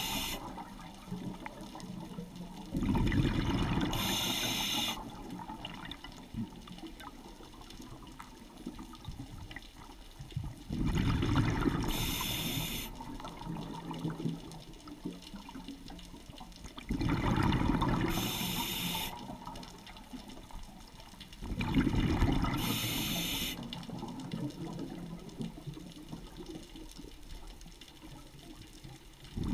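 A scuba diver breathing underwater through a regulator: four loud rushes of exhaled bubbles, several seconds apart, each ending with a short hiss, over a quiet underwater hum.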